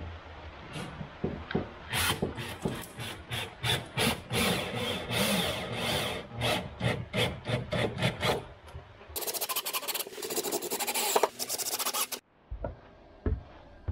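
Makita cordless drill boring into a fibreglass-sheathed timber engine bearer, the bit grinding and rasping through in a string of short bursts. This gives way to a steadier run of about three seconds that stops abruptly, followed by a couple of light knocks.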